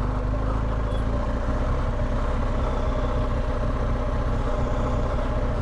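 BMW R1250GS's 1254 cc boxer-twin engine running steadily at low revs, with no revving.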